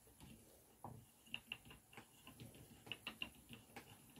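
Faint, irregular light clicking and ticking, a few clicks a second, from spinning yarn by hand as fibre is drafted into a single.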